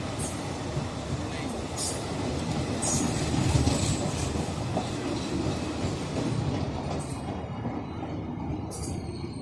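A train running past: a steady rumble of wheels on the rails, loudest about three and a half seconds in, with a few short sharp clicks.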